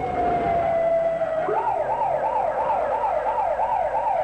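Police car siren: a long wail slowly falling in pitch, which about a second and a half in switches to a fast yelp sweeping up and down about three times a second.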